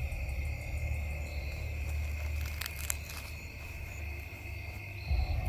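A steady, high-pitched chorus of night insects, with a low rumble of wind or handling noise on the microphone underneath. A few faint clicks come about three seconds in.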